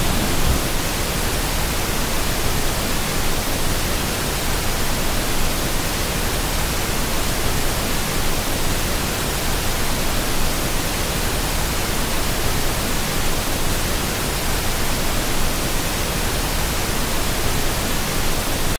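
Roar of the Horseshoe Falls at close range: a loud, steady, even rush of falling water, cutting off suddenly at the end.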